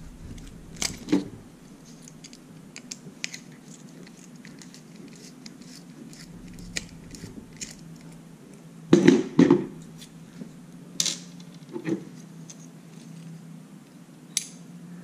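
Small clicks, scrapes and rattles of a screwdriver and small plastic and metal parts being handled while a Wi-Fi smart plug is taken apart at the prong screws, with a few louder handling knocks in the second half. A faint steady low hum runs underneath.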